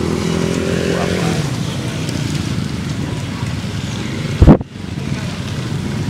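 Small motorbike engines running as bikes ride past, a steady hum with a slight falling pitch about a second in. About four and a half seconds in comes one sudden, very loud low thump.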